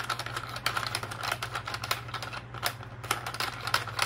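Rapid, irregular plastic clicking and rattling from a baby's activity table as a hand flicks and slides its moving pieces, over a steady low hum.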